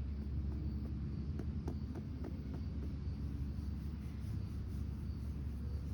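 Outdoor background noise: a steady low rumble with faint high chirps repeating about once a second.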